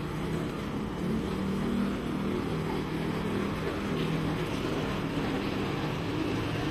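Steady low engine hum echoing through a RoRo ferry's open car deck, with the murmur and footsteps of passengers boarding.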